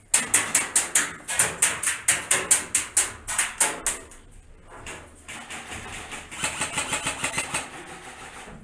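Rapid full-auto airsoft gunfire: a fast rattle of sharp clacks, loud for about four seconds, then lighter, fainter clacking continuing.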